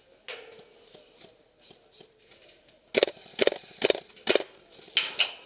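Gas blowback airsoft gun firing single shots: one shot, then after a pause of nearly three seconds a string of about six shots roughly half a second apart.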